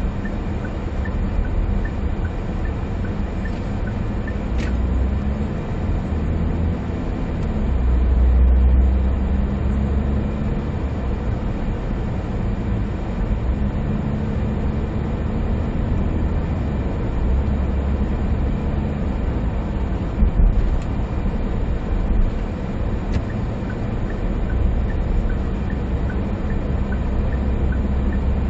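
Cabin sound of a 2020 SsangYong Rexton Sports pickup driving on the highway: its diesel engine and the road noise make a steady low rumble that swells a few times. A couple of small knocks come about twenty seconds in.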